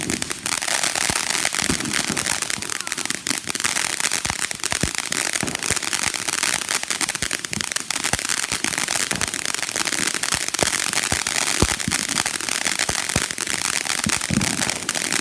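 Ground fountain firework spraying sparks: a continuous loud hiss shot through with dense crackling and sharp little pops.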